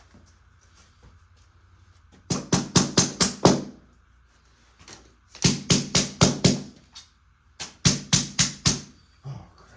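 Hammer blows in three quick runs of about five strikes each, with short pauses between the runs.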